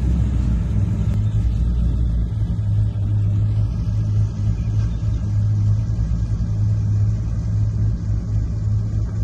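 VE Commodore's engine and exhaust rumbling steadily at low revs as the car rolls slowly in.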